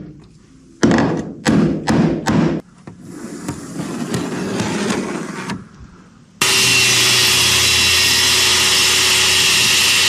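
A few knocks, then a power saw cutting: it starts abruptly a little past halfway and runs steadily and loudly for about four seconds.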